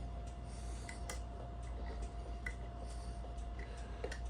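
Scattered small metallic ticks and clicks of a homemade lever pick working the levers inside a five-lever mortise night latch lock, over a steady low hum.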